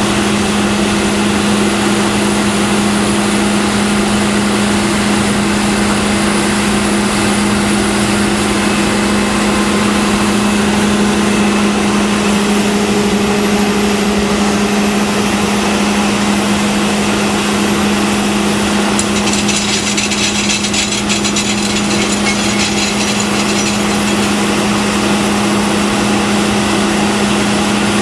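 John Deere 9770 combine harvester running steadily while harvesting wheat: an unchanging drone with a strong low hum. About two-thirds of the way through, a fast rattle joins it for a few seconds.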